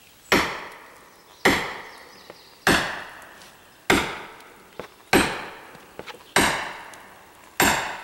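Sledgehammer striking a steel felling wedge driven into the back cut of a tree: seven evenly paced blows, each about a second apart and ringing briefly.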